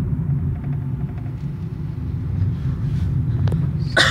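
Steady low rumble of a car's engine and tyres on the road, heard from inside the cabin while driving. A short, louder noise comes right at the end.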